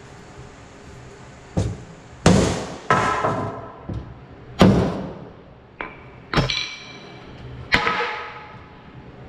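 Body hammer striking the inner steel shell of a damaged car door, about eight irregular blows, to straighten the dented metal. Several blows leave the sheet steel ringing briefly.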